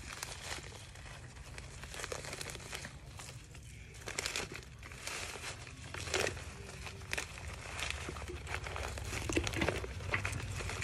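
Irregular crinkling and rustling of plastic and potting soil handled by hands, over a steady low hum.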